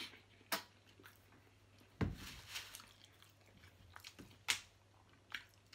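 Quiet mealtime sounds of a person eating at a table: a few scattered short clicks and smacks of chewing and handling food. There is one duller knock about two seconds in.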